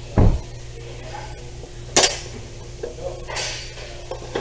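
Metal hand tools clinking and rattling in a tool tray as a torque wrench is taken out. There is a dull thump just after the start and a sharp metallic clack about two seconds in, over a steady low hum.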